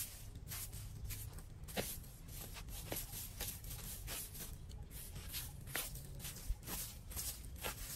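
Plastic-bristle broom sweeping dirt, sand and dry leaves across concrete and over a metal street drain grate, in repeated short strokes about two a second.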